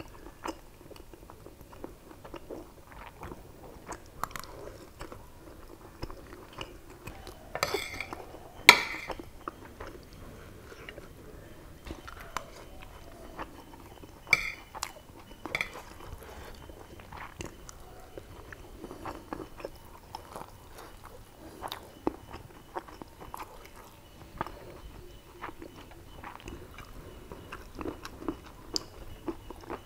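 Close-up chewing of mouthfuls of biryani rice and mutton, with a metal spoon scraping and clinking on the plate now and then; the loudest clinks come about eight to nine seconds in and again around fourteen seconds.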